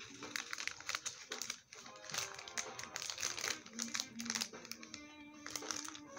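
Packaging crinkling in a series of short crackles as a jewelry piece is unwrapped and handled, over background music with sustained notes.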